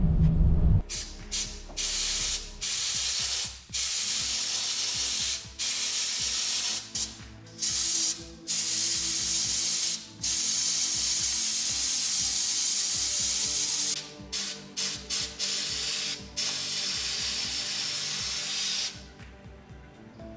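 Sandblasting gun in a blast cabinet, hissing as it blasts sand against a small vase, in long bursts cut by many brief pauses where the trigger is let go. It stops about a second before the end. A low musical note sounds at the very start.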